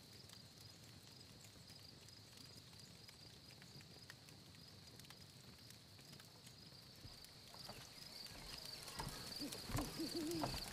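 Faint night ambience of crickets chirping in a steady pulsing trill. From about seven seconds in, footsteps on wooden boards grow louder, and near the end an owl hoots a few times.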